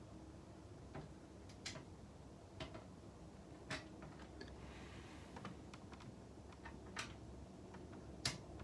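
Sparse light clicks and taps at irregular intervals, the sharpest one near the end.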